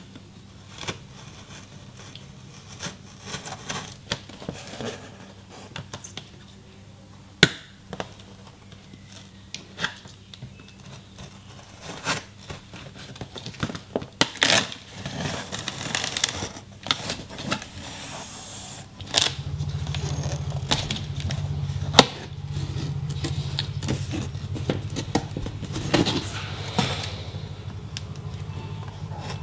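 Small knife slitting and scraping along packing tape on a cardboard box, with scattered clicks, sharp ticks and rustles of tape and cardboard. A low steady hum sits underneath and gets louder about two-thirds of the way through.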